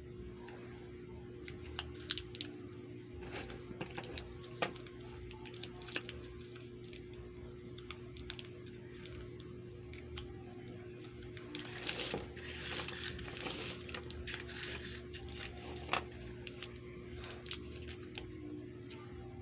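Sugus chewy candy wrappers being handled and unwrapped: scattered small clicks and crinkles, with a longer bout of crinkling about twelve seconds in, over a steady faint hum.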